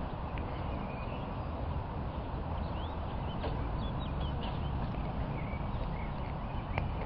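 Steady low outdoor rumble with small birds chirping in short calls several times through the middle.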